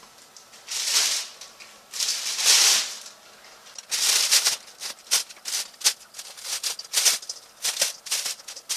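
Plastic oven baking bag crinkling and rustling as handfuls of cut vegetables go into it, in separate bursts at first, then a quick run of short crackles in the second half.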